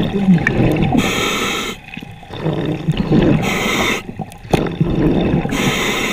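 A scuba diver breathing through a regulator underwater: a hiss on each inhale, three times, alternating with the low rumbling bubble burble of each exhale. A sharp click comes about four and a half seconds in.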